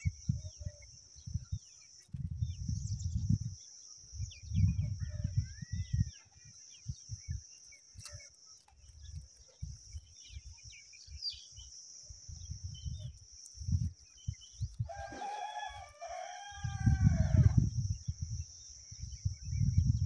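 Low rumbles of wind on the microphone come and go under a steady high hiss. About fifteen seconds in, a rooster crows once, for about a second and a half.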